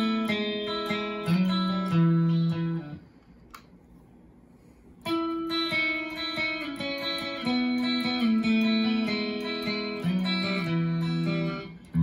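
2011 Gibson Les Paul Special Pro electric guitar with DiMarzio Air Classic pickups playing a melodic single-note phrase. It breaks off for about two seconds, with a single click in the gap, then the same phrase is played again.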